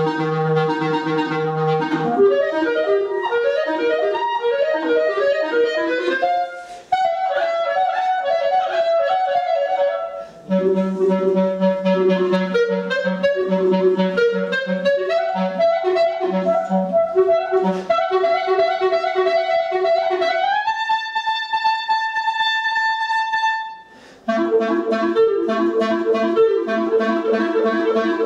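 Solo clarinet playing fast, leaping passages that jump between low and middle notes, broken by brief pauses. About two-thirds through it slides up into a long held high note, then returns to rapid repeated figures.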